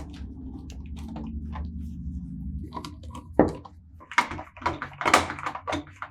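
A small electric motor runs with a steady low hum for about the first two and a half seconds, then dies away. Several sharp clicks and knocks follow.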